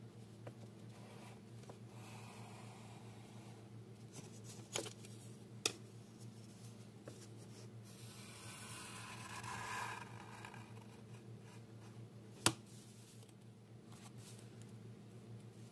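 Faint handling of a sheet of drawing paper and a wooden ruler: fingers brushing the paper in a soft rustle that swells for a couple of seconds around the middle, with three sharp clicks, the loudest near the end. A steady low hum runs underneath.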